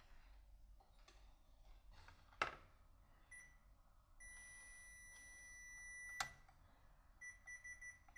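Multimeter continuity beeper sounding faintly: a steady high beep held for about two seconds, then a run of short broken beeps near the end, as the test probes make and lose contact on the controller board's wiring. A single sharp click comes a couple of seconds in.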